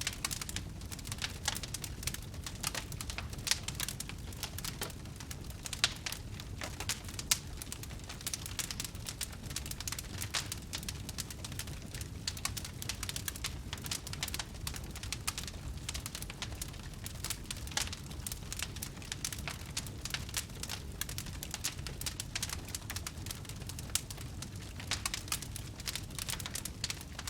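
Fire crackling: frequent, irregular small pops and snaps over a steady low rumble.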